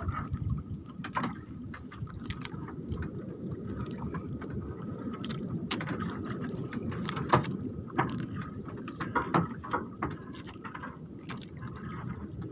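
Sea water splashing and lapping around a small outrigger fishing boat, over a steady low rumble, with scattered short sharp splashes and knocks.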